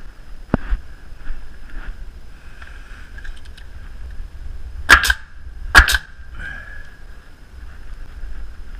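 DeWalt coil nailer firing twice, a little under a second apart, driving nails into a wooden siding board. Each shot is a sharp crack, and there is a lighter knock about half a second in.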